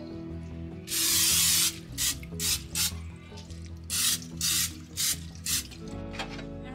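Aerosol olive oil cooking spray hissing into baking pans: one long spray about a second in, then a string of about seven short squirts. Soft background music underneath.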